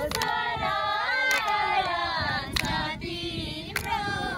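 A group of young women singing a song together while clapping hands in a circle game, with a sharp clap about every second and a quarter, four in all.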